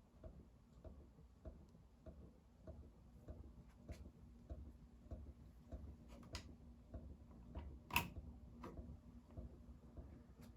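Kichler Todo ceiling fan running, faint: a steady motor hum with a soft, regular tick a little under twice a second, and a sharper click about three quarters of the way through.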